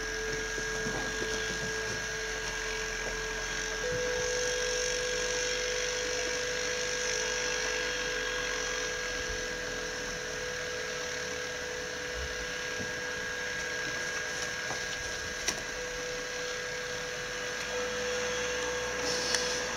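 Quad ATV engine running steadily at a distance as it tows a sled through snow, a constant whine whose pitch steps up slightly about four seconds in.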